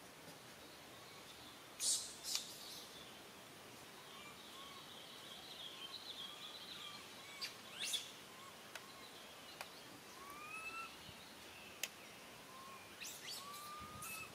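Faint outdoor ambience with scattered short, rising chirping calls and a few sharp clicks, the loudest about two seconds in.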